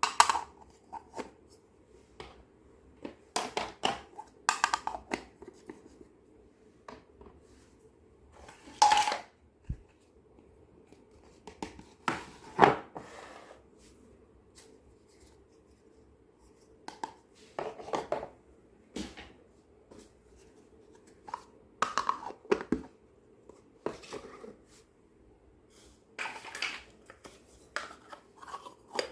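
Hands unboxing and handling small plastic toy kitchen pieces and their packaging: scattered clicks, taps, rustles and short tearing sounds with quiet pauses between them.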